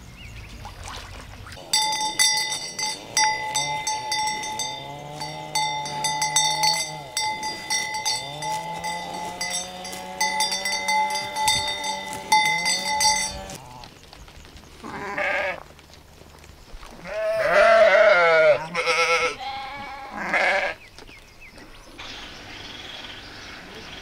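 A livestock bell clanking steadily with many clapper strikes for about twelve seconds, under several low, drawn-out animal calls. After the bell stops, a few quavering bleats follow.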